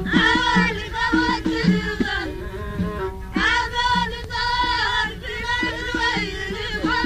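Amazigh folk song from the Middle Atlas: a voice sings a melodic line over a steady drum beat, pausing briefly about two seconds in before the singing resumes.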